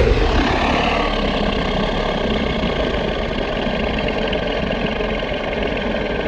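A steady, loud rumbling noise, heaviest in the deep bass, with no clear pitch.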